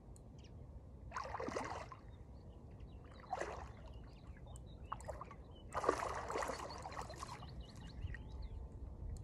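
Water splashing in three bursts, the last the longest and loudest.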